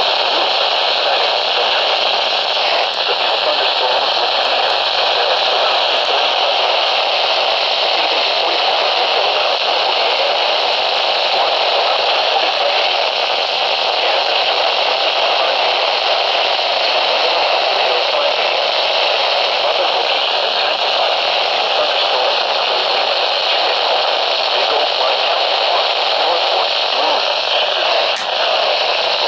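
Steady radio static hiss from a radio receiver, with no clear voice coming through.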